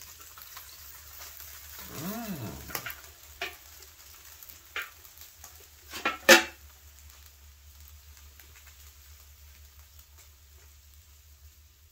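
Hot water and melting beeswax sizzling faintly in a roaster pan, with knocks and clacks of a metal utensil against the pan as the bagged wax is worked. The loudest is a sharp clack about six seconds in.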